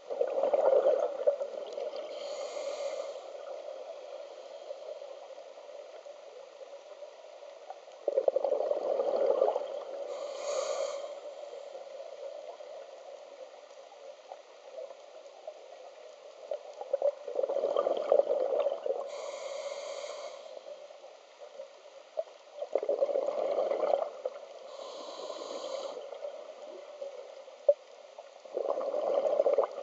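Scuba diver breathing through a regulator underwater: five bursts of exhaled bubbles gurgling, each followed by a short, fainter hiss of the next breath drawn in.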